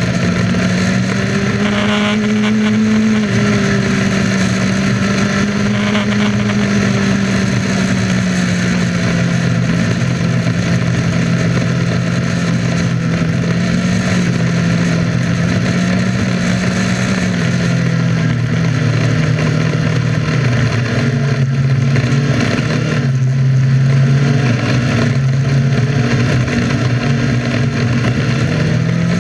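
Onboard sound of a winged dirt-track sprint car's engine running at fairly steady revs, with air rushing past the open cockpit. The engine pitch eases down a little about two-thirds of the way through and again near the end.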